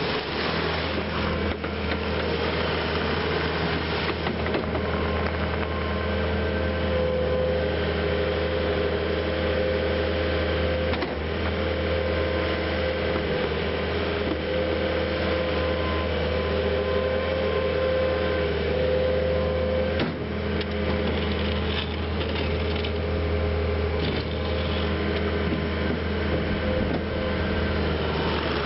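Bobcat T770 compact track loader's diesel engine running steadily with a constant hum as the machine drives, turns and raises and lowers its bucket. There is a single short knock about twenty seconds in.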